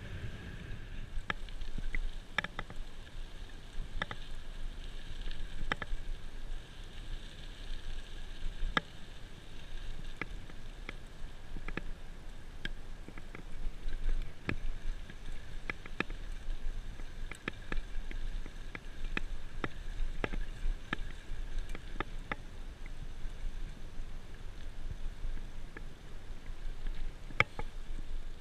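Bicycle ride on an asphalt road: wind rumbling on the microphone, with irregular sharp clicks and rattles from the bike as it rolls over the surface.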